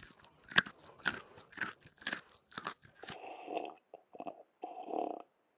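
Crunching sound effect: six crisp crunches about two a second, then two longer, rougher crunching stretches, like food being bitten and chewed.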